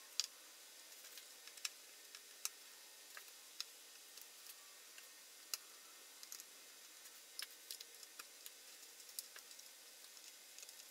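Faint, irregular small clicks and taps from wire connectors and cables being handled and plugged onto a circuit board, the loudest just after the start.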